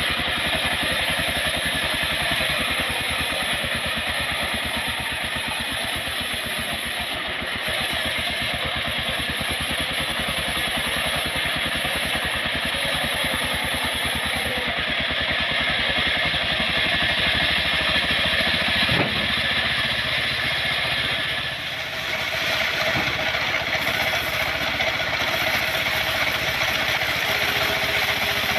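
The engine of a wood-cutting machine running steadily, its note shifting briefly about three-quarters of the way through.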